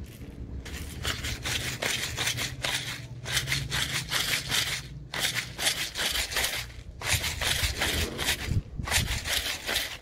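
Pepper grinder twisted over the meat, its mill cracking peppercorns with a gritty rasping crunch, in three long spells broken by two brief pauses.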